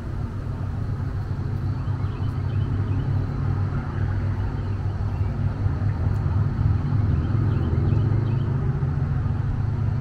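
Wind buffeting the camera microphone: a steady low rumble that swells in gusts in the second half.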